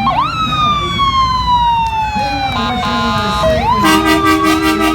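A siren winds up sharply and then slowly winds down, broken by a short blast of a multi-note truck air horn; near the end the siren winds up again while a deep air horn sounds steadily under it.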